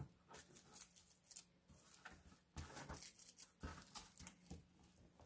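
Faint rustling of thin tissue pattern paper and light taps as the paper is shifted and smoothed under a clear acrylic ruler on a cutting mat, a few short handling sounds scattered through, over a faint steady hum.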